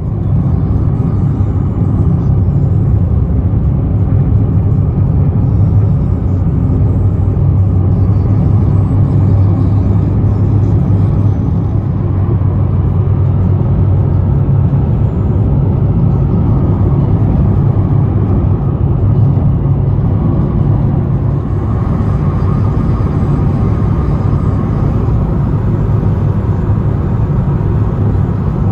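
Steady low rumble of engine and tyre noise from a car travelling at speed on a multi-lane highway.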